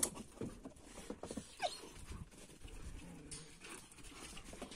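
Two dogs playing rough on bare dirt: scuffling footfalls and a few short, faint dog vocal sounds.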